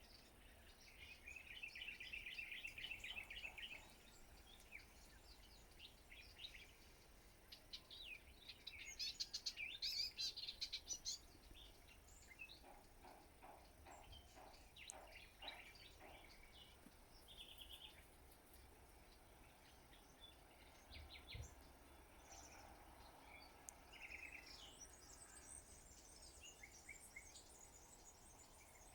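Faint wild birdsong over quiet background noise: several birds chirping and trilling, with a fast trill near the start, a louder burst of song about ten seconds in, and a run of lower repeated notes in the middle.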